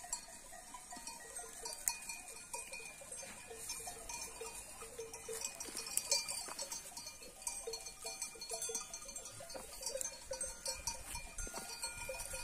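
Faint, irregular clanking of sheep bells as the flock grazes and moves through the scrub.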